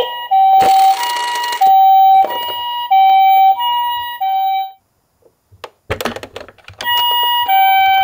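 Toy ambulance's electronic siren playing the Japanese two-tone 'pee-po' ambulance call, a higher and a lower tone alternating about every half second. It stops about five seconds in, a few clicks and rustles follow, and the siren starts again near the end.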